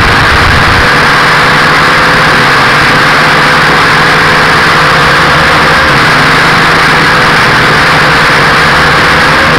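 A small camera quadcopter's motors and propellers whining steadily, heard loud and close through its own onboard camera. The pitch wavers a little as the throttle changes.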